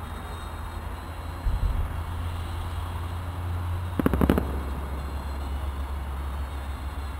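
Distant fireworks: a low thud about a second and a half in, then a quick cluster of sharp crackling bangs about four seconds in, over a steady low rumble.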